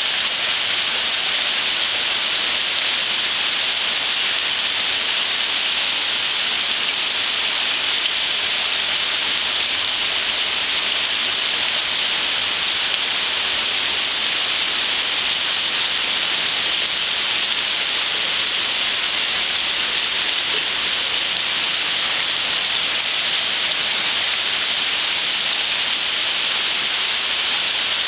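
Steady heavy rain mixed with small hail, an even hiss of drops and pellets falling on a lawn and concrete paving, unchanging throughout.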